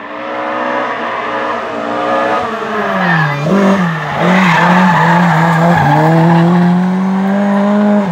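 A rally car's engine revs hard as it approaches, and its note drops and jumps several times as the driver brakes and changes down for the hairpin. The car then passes close with a loud rush of tyre noise and pulls away at a held high engine note.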